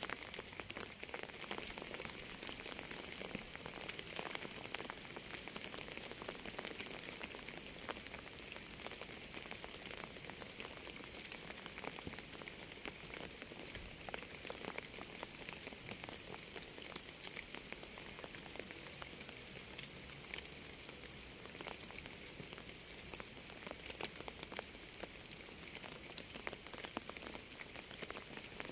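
Steady rain falling: an even hiss dotted with many sharp taps of individual drops.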